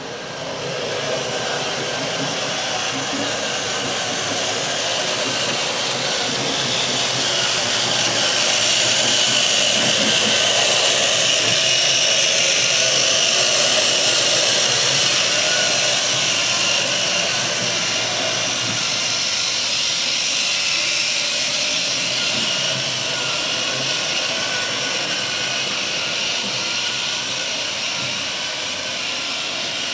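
A 7.5 mm scale metre-gauge model electric locomotive and its freight wagons running on the track: a steady motor whine with rolling noise from the wheels. It grows louder about a third of the way in as the train passes close, then eases off.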